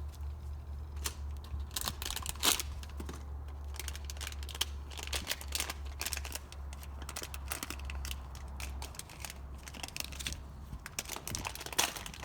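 Plastic bag being torn and opened by hand: an irregular run of sharp crinkles and clicks.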